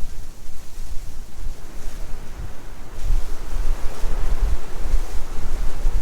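Blizzard wind gusting and buffeting the microphone with a rumble; the gust strengthens about three seconds in.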